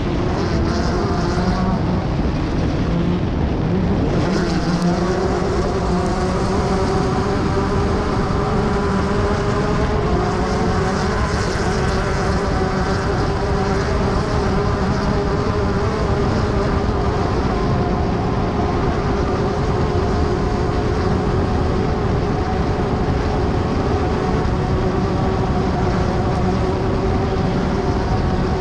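Class 10 off-road race car's engine held at steady high revs, with a heavy low rumble underneath.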